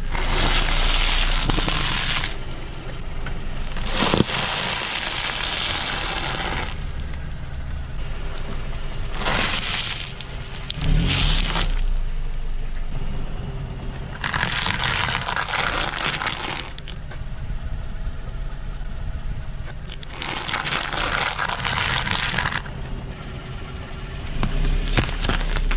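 A car tyre rolling slowly over food on asphalt and crushing it: puffed rice cakes and a packaged food bag crunching and crackling. The crunching comes in several separate spells of one to three seconds each over the car's low rumble, and near the end fruit is squashed.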